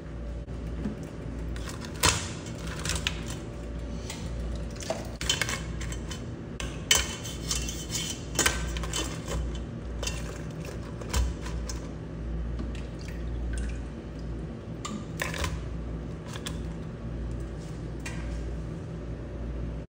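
Live blue swimmer crabs and handling hands knocking and scraping against a stainless steel pot: an irregular scatter of sharp clicks and clatters of shell and claw on metal. A steady low hum runs underneath.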